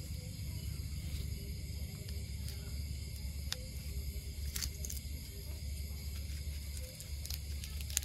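Metal tweezers picking at soft rotten wood, with a few faint small cracks and scrapes of wood fibres over a steady low hum.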